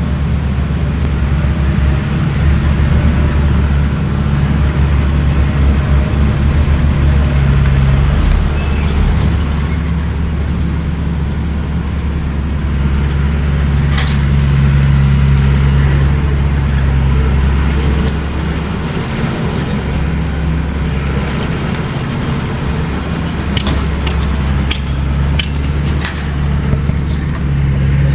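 Bulldozer's diesel engine running steadily under load, with a few sharp metallic clanks, one about halfway and a cluster near the end.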